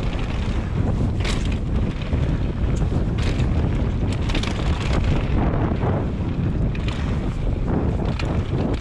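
Wind buffeting the microphone while mountain bike tyres rumble over a dirt trail, with short, sharp rattles and knocks from the bike over bumps scattered throughout.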